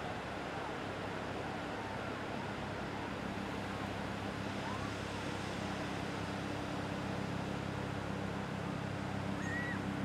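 Ocean surf washing steadily onto a beach. A low steady hum comes in a few seconds in, and there is one brief high chirp near the end.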